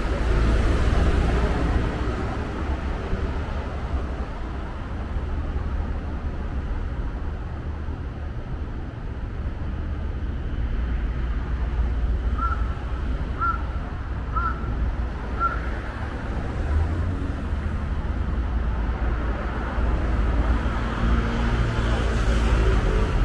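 Steady city traffic noise with a low rumble. Midway, four short high calls come about a second apart.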